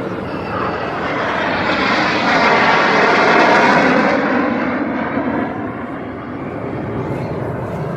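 Aerobatic display jets flying past overhead, their engine noise swelling to a peak about three to four seconds in and then fading as they pass.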